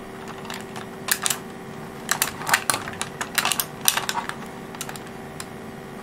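Irregular light clicks and taps of clear acrylic case panels knocking together as they are handled and fitted around an Orange Pi 5 board, in small clusters.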